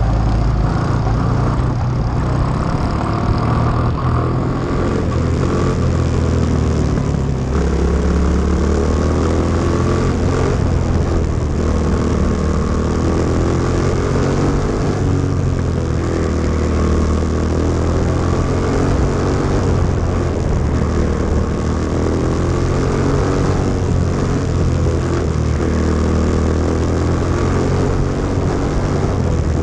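Single-cylinder four-stroke Briggs & Stratton Animal kart engine, heard from on board a caged dirt-track kart, running hard on the track. Its pitch rises and falls as the throttle comes on and off through the laps.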